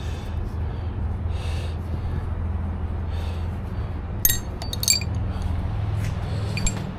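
A few sharp metallic clinks, like hand tools or small parts being handled and set down, about four to five seconds in, over a steady low hum.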